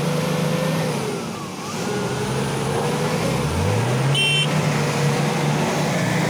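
SUV engine working under load as the Toyota Land Cruiser climbs out of a muddy ditch, easing off and then revving up about three and a half seconds in. A short high-pitched chirp comes just after the rev.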